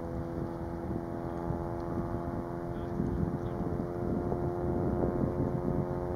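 Steady, even drone of a towboat's diesel engines carried across the water as it pushes barges, with wind buffeting the microphone.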